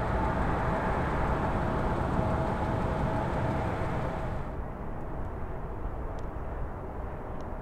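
Jet airliner engines running on landing approach: a steady roar with a faint whine. About halfway through, the sound cuts abruptly to a quieter, duller rumble of an Airbus A330-243 on final approach.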